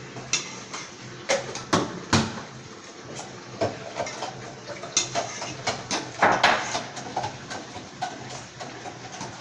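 A metal utensil knocking and scraping against a cooking pot in irregular clinks, some ringing briefly, as pieces of egg-coated bread are pricked and pushed down in boiling cane-sugar syrup.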